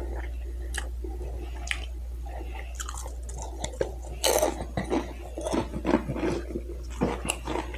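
A person chewing and crunching Doritos tortilla chips close to the microphone: irregular crisp crunches, coming thicker in the second half, over a steady low hum.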